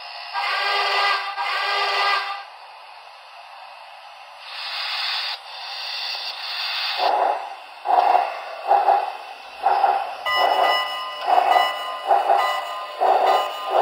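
Onboard sound system of an HO-scale Broadway Limited Norfolk & Western 2-6-6-4 steam locomotive model, heard through its small speaker. The whistle sounds two blasts, then comes a hiss. About seven seconds in, steam chuffing begins at about one to two chuffs a second as the locomotive pulls away.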